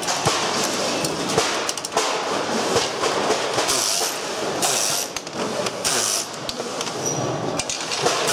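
Workshop clatter from taking apart a pachinko machine frame: metal and plastic parts knocking and clicking against each other over a steady background din, with a few short hissy bursts in the second half.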